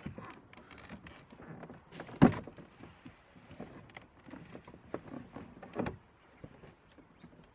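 Handling noise and knocks as a car's interior door panel is worked back onto the door, with one sharp thump about two seconds in and a smaller knock near six seconds.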